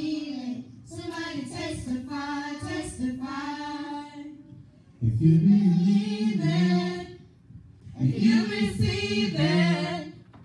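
Unaccompanied singing in phrases of a couple of seconds with short breaks: higher children's voices first, then louder, lower adult voices come in about five seconds in.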